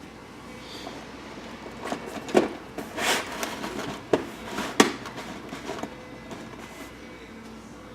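Handling noise from power cords, plugs and power strips being moved: a few sharp knocks and clatters with a brief rustle, about two to five seconds in.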